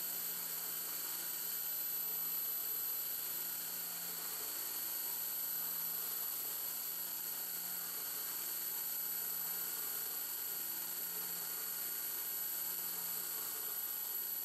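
CNC mill spindle running at high speed, a quarter-inch three-flute cobalt end mill cutting into an aluminium block, with a compressed-air blast hissing at the cut to clear the chips. A steady, even noise with a high-pitched whine.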